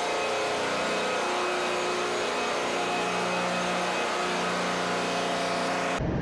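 Steady machinery noise of a ship's engine room: a dense, even hum with several steady tones. About six seconds in it changes abruptly to a lower, rumblier sound.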